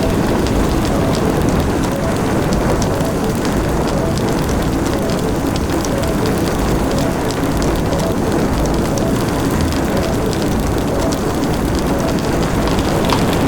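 Designed dragon fire-breath sound effect: a steady rush of flame with dense crackling, held level throughout without a break.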